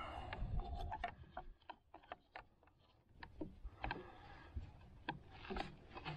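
Scattered light clicks and taps of hands handling a clear plastic motorcycle windscreen and pressing a small black mounting fitting into one of its holes.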